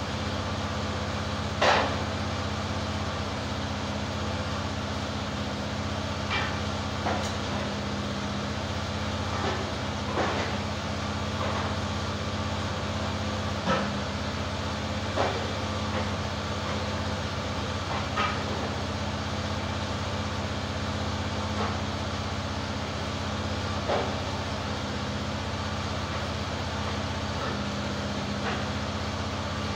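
EZ Boardwalk 40 sawmill's engine running steadily, with a dozen or so scattered sharp knocks and clanks of metal and wood as the log and mill are handled.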